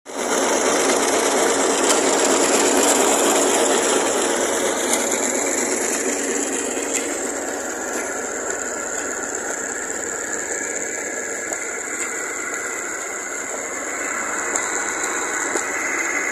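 Massey Ferguson tractor's diesel engine running steadily, driving an old centrifugal tubewell pump through a long flat belt. It makes a continuous mechanical din with a light rattle from the belt and pulleys.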